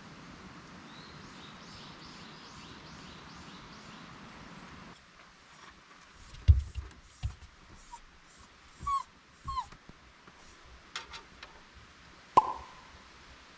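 Small poodle whimpering in several short high whines that fall in pitch, mixed with a few sharp thumps, the loudest a little past the middle and another with the last whine near the end. The dog is whining, impatient for its walk.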